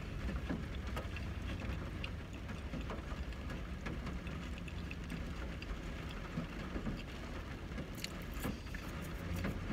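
Steady low rumble inside a car's cabin, with quiet chewing and small mouth clicks from someone eating fast food, and a few sharper ticks near the end.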